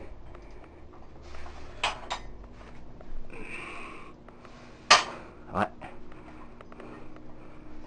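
Metal dumbbells clinking during a seated overhead dumbbell press. There is a double clink about two seconds in, then the loudest clank about five seconds in, followed by another about half a second later.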